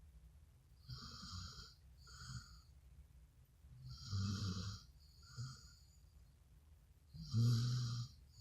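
Dogo Argentino snoring loudly in sleep: three long snores about three seconds apart, each followed by a shorter, softer snore, the last the loudest.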